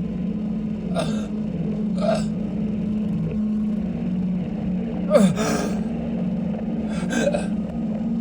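A series of short, breathy gasps, four in all, over a steady low hum. The loudest gasp, about five seconds in, carries a voice that slides down in pitch.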